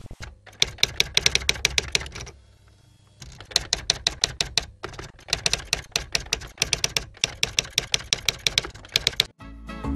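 Typewriter sound effect: rapid keystrokes, about eight a second, in runs broken by short pauses, with a longer break about two and a half seconds in.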